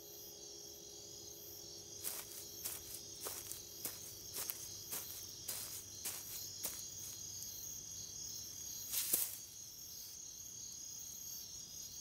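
Crickets chirring steadily at night, with a run of soft footsteps from about two to seven seconds in and one louder rustle about nine seconds in.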